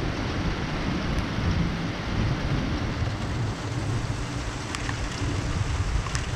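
Steady rain falling in a thunderstorm, over a low continuous rumble. A couple of faint ticks sound near the end.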